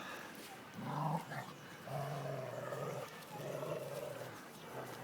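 Dog growling in about three long, low growls, each lasting up to a second or more.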